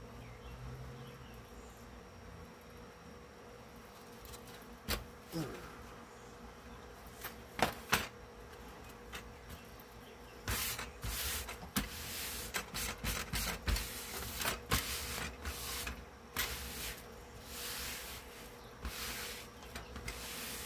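A steady faint buzzing hum with a few scattered clicks, then from about halfway a busy run of irregular rustling and scraping handling noises.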